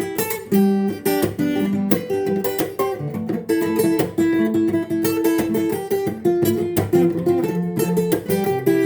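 Acoustic guitar playing an instrumental melody over plucked chords, with new notes picked several times a second.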